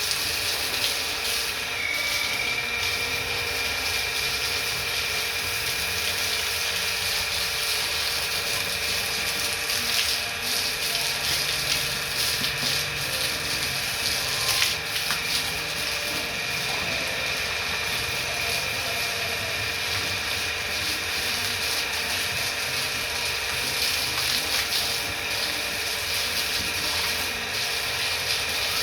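Steady machine noise: a constant hiss with several unchanging tones, a high whine among them setting in about two seconds in.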